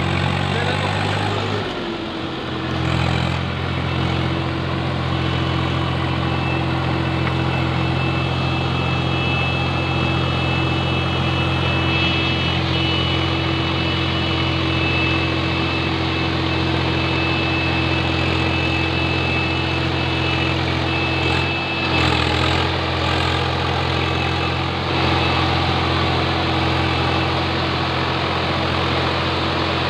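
Engine running steadily at constant revs, with road noise and a faint high whine above it through the middle stretch.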